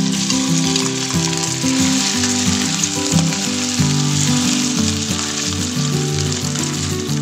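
Cubes of canned beef loaf sizzling as they fry in hot oil in a wok, a dense steady hiss that starts as they hit the oil. Soft background music plays underneath.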